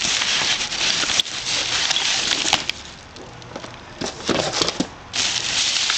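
Rustling and handling of salvaged items while rummaging through them, with a few sharp clicks and light knocks. The noise is loud for nearly three seconds, dips, then picks up again about five seconds in.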